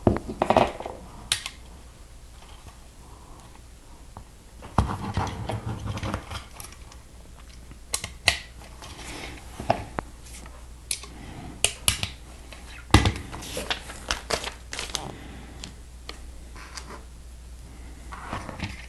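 Plastic Lego pieces clicking and rattling as tyres and wheels are pushed onto a small model truck: scattered sharp clicks, a few close together, with a denser rustle of handling about five seconds in.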